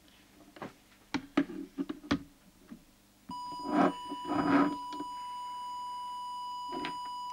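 A few sharp clicks as the audio test oscillator is handled, then about three seconds in it switches on with a steady, unwavering test tone, the signal used to drive the CB radio's microphone input for setting transmit deviation.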